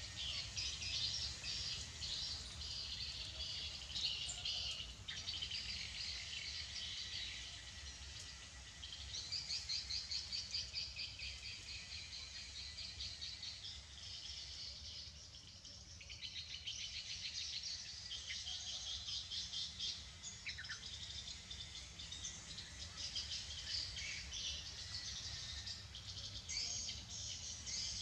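Insects and birds chirping together: a dense, rapidly pulsing high chirr that swells and fades every few seconds, over a faint steady low hum.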